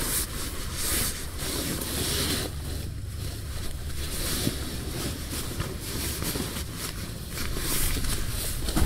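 A Snugpak Jungle Bag sleeping bag rustling and swishing in a series of bursts as it is pulled out of its stuff sack and shaken open onto the mat, over a steady low rumble.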